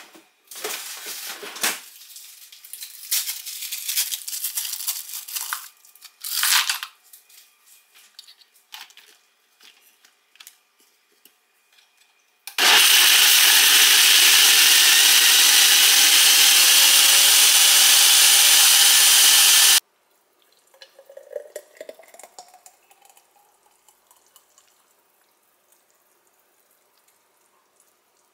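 Countertop blender running for about seven seconds, blending a green smoothie, starting and stopping sharply. Before it come scattered clatters and rustles of ingredients going into the jar; after it, liquid is poured with a sound rising in pitch as a glass fills.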